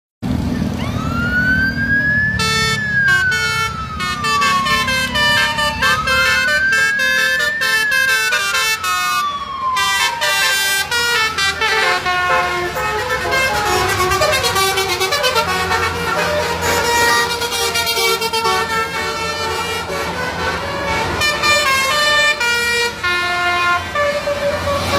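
Bus telolet "basuri" musical air horns playing a tune of short stepped notes, over the rumble of the bus engine. In the first eight seconds a siren-like wail rises and falls slowly twice.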